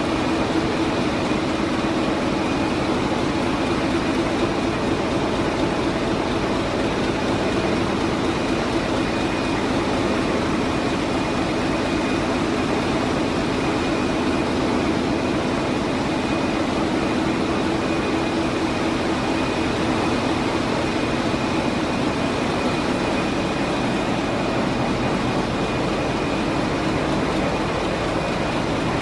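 Wärtsilä 8L50DF eight-cylinder in-line dual-fuel marine engine running, heard close up in the engine room as a loud, steady, unchanging mechanical noise with a thin steady whine above it.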